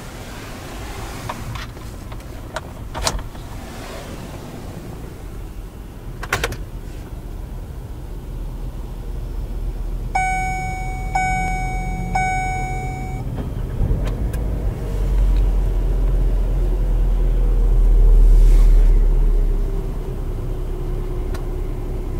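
Clicks from the Hyundai Tucson's six-speed automatic gear selector and cabin controls, then the car's electronic chime beeping three times at one steady pitch. A low rumble then swells for several seconds.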